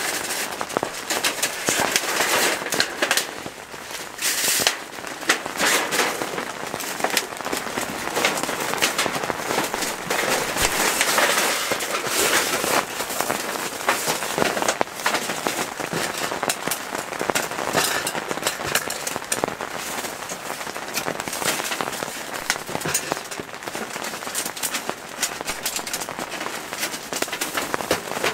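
Heavy rain pattering on the tent fabric, a dense, steady crackle of drops.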